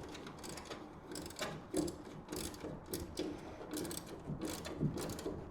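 Hand ratchet clicking in short, irregular back-and-forth strokes while a bolt is tightened.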